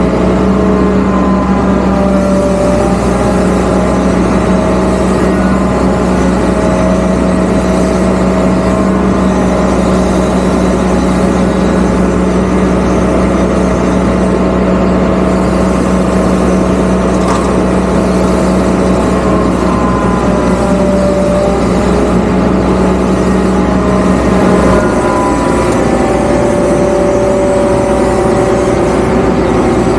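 Zoomlion ZE370E excavator running, its diesel engine steady under a hydraulic whine that rises and falls as the boom moves the mulcher head. A steady hum in the sound cuts out about 25 seconds in.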